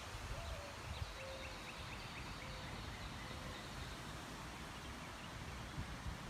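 Faint outdoor ambience: a steady low rumble with a faint bird trill of quick chirps about a second in.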